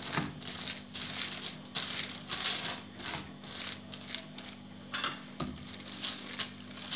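A hand rubbing oil over a polythene sheet on a round wooden rolling board, the plastic rustling and crinkling in quick repeated strokes, about two a second. A steady low hum runs underneath.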